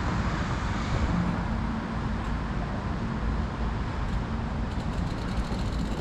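Steady road traffic noise: a continuous rumble and hiss of passing vehicles.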